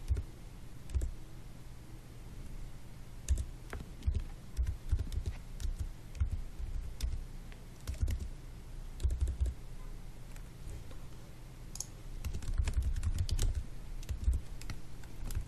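Typing on a computer keyboard: irregular runs of keystrokes with pauses between them, over a steady low hum.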